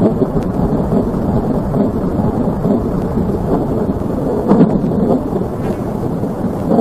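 A continuous low, rumbling, storm-like roar with no clear pitch, swelling briefly about two-thirds of the way through.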